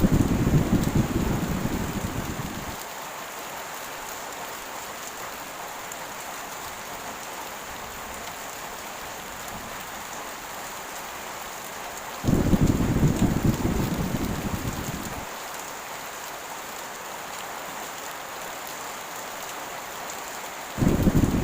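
Heavy rain falling in a steady hiss, with rolling thunder that breaks in suddenly three times: at the start, about twelve seconds in, and just before the end. Each rumble fades away over about three seconds.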